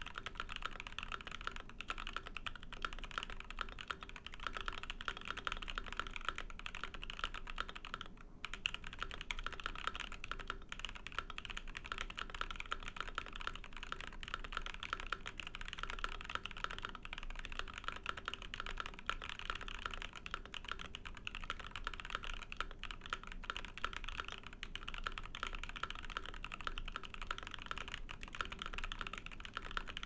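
Continuous typing on a GMMK Pro mechanical keyboard with a brass plate, lubed Zykos tactile switches and ePBT PBT keycaps: a dense, steady clatter of keystrokes, with a brief pause about eight seconds in.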